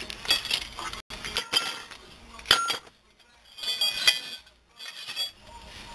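Small loose metal parts clinking and knocking together as they are handled: a handful of separate clinks with short ringing, the loudest about two and a half seconds in.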